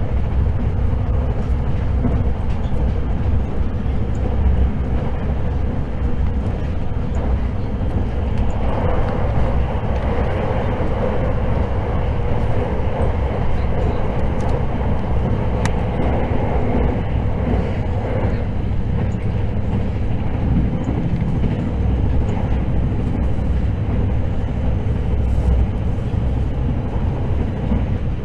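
Interior running noise of a limited express electric multiple unit travelling at speed: a steady low rumble of wheels and running gear on the rails, with a louder, brighter rushing stretch from about 8 to 18 seconds in.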